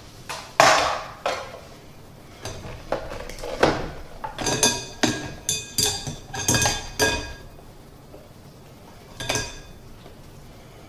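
Knocks and clatter of a plastic food processor bowl and grating disc being handled, then a quick run of knocks and ringing clinks against a wire mesh strainer set in a glass bowl as grated potato and onion are tipped in. One last knock comes near the end.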